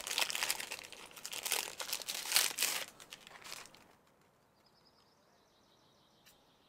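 Plastic food packaging crinkling and crackling as it is handled, a dense run of crackles that stops about three and a half seconds in.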